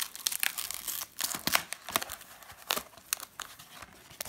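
Clear plastic wrapping crinkling and tearing as it is handled and pulled off a wireless doorbell push button, in irregular sharp crackles.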